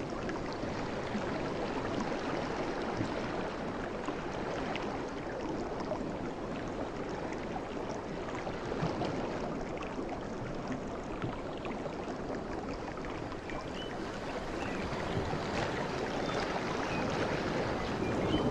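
Sea waves washing on the shore in a steady rush of surf, swelling gently near the end.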